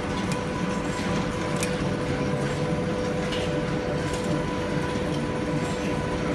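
Workshop machine tool running steadily with a constant hum, a rumbling undertone and scattered light clicks, as a metal part is drilled out.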